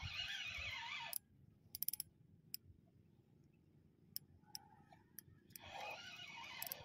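Faint handling noise: rubbing and rustling against the phone's microphone for about a second at the start and again near the end, with a few scattered sharp clicks in between.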